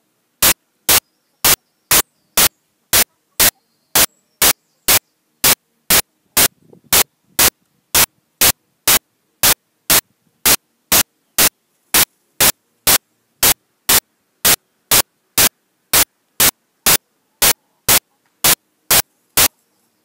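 Loud, short bursts of static noise repeating evenly about twice a second, with only a faint background between them: a glitch in the audio, not a sound from the scene.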